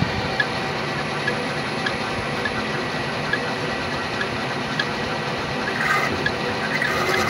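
CNC-4040 benchtop CNC mill cutting steel with a small end mill: steady machining noise with a thin high spindle whine and light regular ticks a little over half a second apart.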